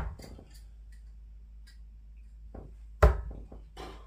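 A 25-gram tungsten dart strikes the dartboard with a sharp thud about three seconds in, followed by a few small knocks. The fading end of the previous dart's impact is heard at the very start.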